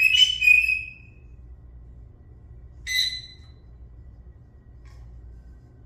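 Senegal parrot giving high whistled calls: one of about a second at the start, and a shorter one about three seconds in.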